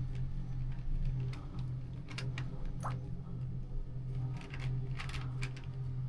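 Steady low drone of a ship crane's engine heard inside the operator's cabin, with scattered light clicks and ticks.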